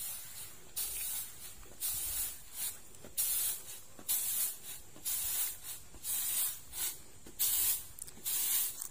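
Rice grains swishing across a round woven bamboo winnowing tray (tampah) as it is tossed to clean the rice. Each toss gives a short hiss, in a rhythm of about one swish a second.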